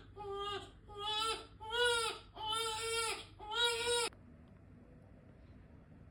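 Infant crying in five short, pitched wails one after another, stopping suddenly about four seconds in.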